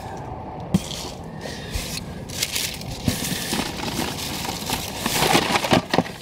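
Crumpled packing paper and plastic-blister carded action figures rustling and crinkling as they are handled and pulled out of a cardboard shipping box, with a few light knocks, busiest near the end.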